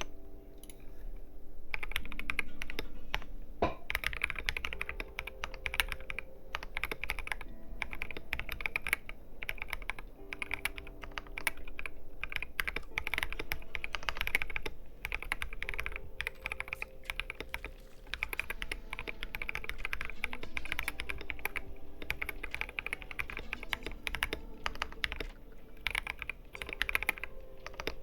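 Typing on an R2 KBD67 Lite gasket-mount mechanical keyboard fitted with Krytox 205g0-lubed, filmed Durock Koala switches and PBT XDA keycaps. A fast, steady stream of keystroke clicks picks up about two seconds in and continues with brief pauses.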